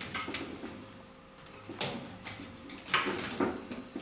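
A kitten playing on a cone-shaped sisal scratching post, knocking the post and batting its dangling toys on springy wires: a few sharp clattering knocks and rattles, each ringing briefly.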